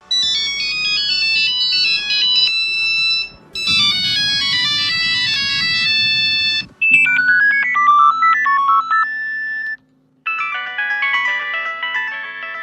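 Short excerpts of four different Nokia mobile phone ringtones, electronic melodies played one after another. The first three each stop abruptly after about three seconds, with a brief gap before the next begins.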